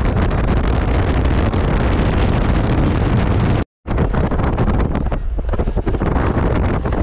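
Heavy wind buffeting the microphone of a moving car, with road noise underneath. A little past halfway the sound cuts out completely for a split second, then comes back.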